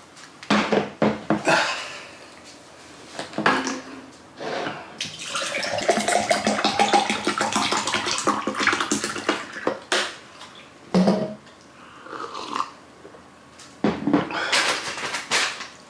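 Water pouring for about five seconds in the middle, its pitch slowly rising. Clattering kitchen utensils and dishes come before and after it.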